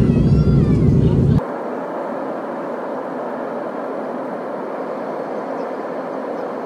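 Airliner cabin noise from a window seat: a deep steady rumble with faint voices, then about a second and a half in it switches abruptly to a thinner, even rush without the deep rumble, the cabin on the descent.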